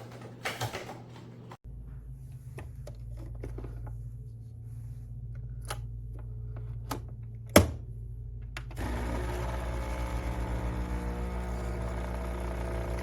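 Capsule espresso machine: a low hum starts about a second and a half in, a few light clicks follow and one sharp click comes near the middle, then the 20-bar pump starts up and buzzes steadily as it pushes water through the pod.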